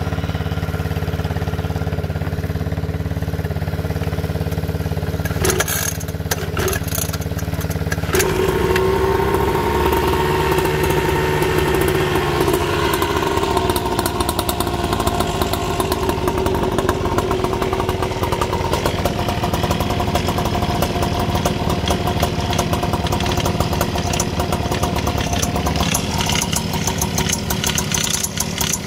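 Small 50cc engine of a children's mini motocross bike running after a cold start. It idles steadily, with a few short knocks around six seconds in. At about eight seconds the note changes to a rougher run whose pitch wavers up and down.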